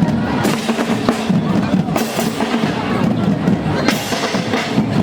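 Children's marching band playing, with bass and snare drums beating a steady march rhythm under a pitched melody.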